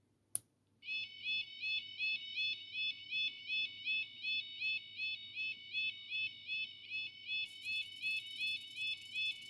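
A single button click, then a recorded railway level-crossing warning alarm played through a small MP3 soundboard's speaker: a high warbling tone that repeats two to three times a second. A hiss joins the alarm about seven seconds in.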